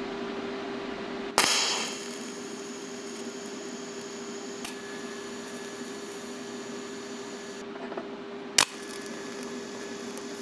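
TIG welding of a steel nut and washer. A sharp crack about a second in starts a steady buzzing hiss over a constant hum. There is another sharp click near the end, then the sound cuts off abruptly.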